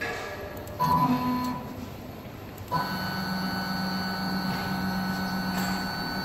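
Stepper motor of a mini CNC wood lathe whining as the X axis is jogged. A short move about a second in is followed by a steady, even whine from about three seconds in.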